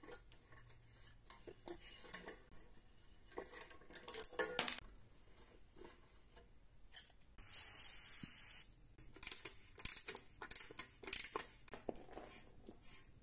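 Metal clicks and clinks from hand tools, a ratchet wrench and a crank puller, working a bicycle crank arm off its square-taper bottom bracket spindle. There is a quick run of clicks about four seconds in, a hiss-like noise lasting about a second around the middle, and scattered clinks after it.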